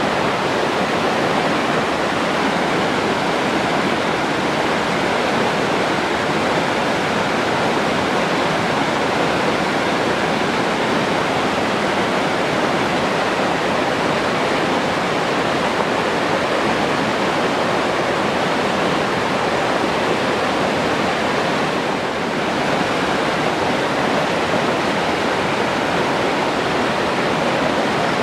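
Forest stream water rushing steadily over rocks, an even, unbroken flowing sound.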